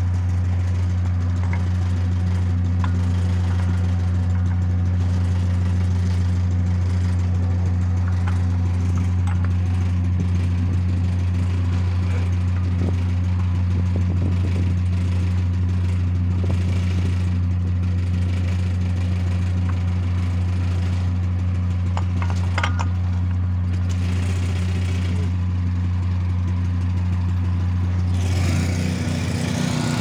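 Hydraulic pump unit running with a steady low drone while it drives the hydraulic crimping head compressing a connector onto a stranded conductor. Near the end the drone changes and grows unsteady.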